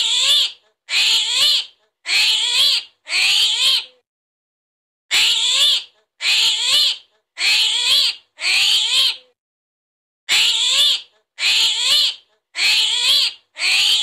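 High, squealing animal calls with a wavering pitch, each under a second long, coming in sets of four about a second apart with a short pause between sets. The sets repeat identically on a loop, the sound the video gives for an armadillo.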